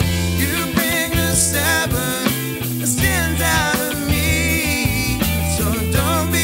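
A soul-funk band playing live: strong bass notes and drum hits, with a singer's voice sliding in pitch over them.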